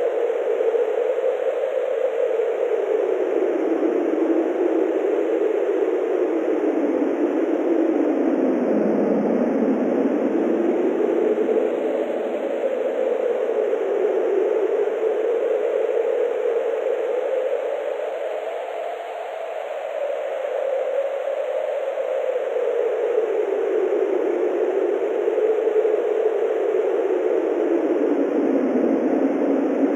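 Synthesized wind: filtered noise from a synthesizer with reverb, in steady gusts whose pitch slowly rises and falls, sweeping down lowest about nine seconds in.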